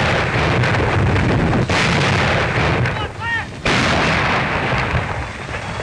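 Twelve-inch railway howitzers firing: heavy shots roughly two seconds apart, each a sudden blast followed by a long rolling rumble.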